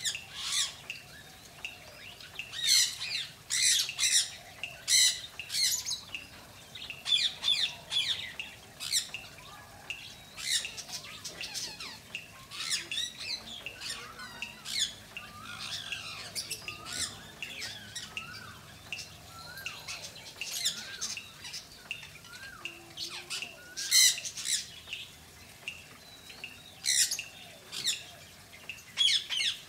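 Birds calling: short, sharp squawks and chirps repeated in quick clusters throughout, with a run of short rising calls about once a second through the middle.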